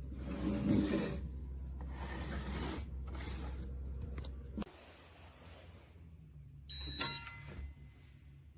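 Handling noises with a click about halfway through, then a short electronic tone with a sharp click about seven seconds in, typical of a biometric pistol safe's electronic lock being operated.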